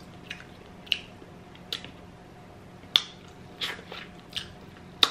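Close-miked eating of soft fried fish: wet mouth clicks and lip smacks while chewing, about seven sharp ones at irregular intervals over a faint steady hum.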